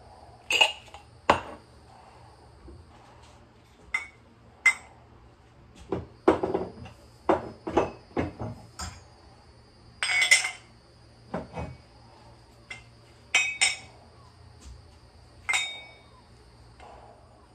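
Small metal cups clinking and knocking against each other as they are handled and gathered. The hits come irregularly, a few sharp and briefly ringing.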